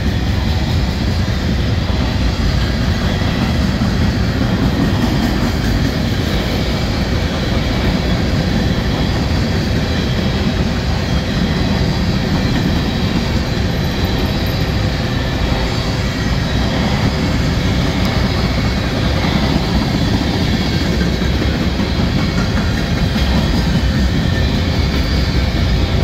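Freight cars of a passing manifest train, mostly covered hoppers, rolling steadily by with a continuous rumble of wheels on rail. Strong wind buffets the microphone, adding a heavy low rumble.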